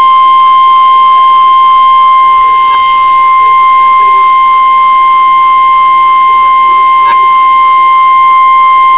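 NOAA Weather Radio warning alarm tone: one loud, steady, unwavering 1050 Hz beep held without a break, the attention signal that comes before a severe thunderstorm warning is read.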